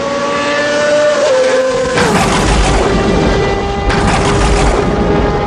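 Cinematic intro music of sustained tones: about two seconds in the tones slide down in pitch and a deep boom hits, leaving a long held note.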